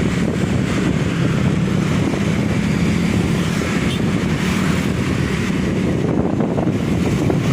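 Steady drone of a road vehicle's engine on the move, with wind rushing over the microphone.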